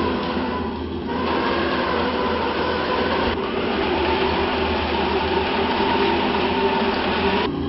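Hooben 1/10 Merkava 4M RC tank running under remote control: a steady mechanical whir with whining tones. It dips briefly about a second in and changes again around three seconds in and near the end.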